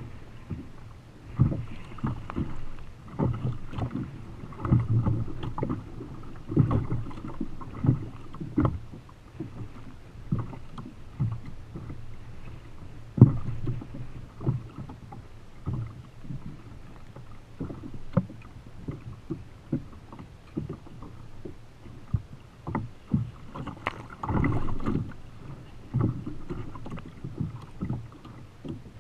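Choppy seawater slapping and knocking against a plastic fishing kayak's hull, heard through the kayak-mounted camera as irregular low thumps over a wash of water, with one sharp knock about halfway through.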